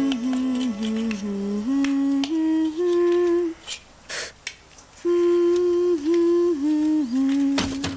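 A girl humming a slow, simple tune with her mouth closed, holding each note and stepping between them, in two phrases with a short pause a little before the middle. There is a brief rasping noise in the pause and another near the end.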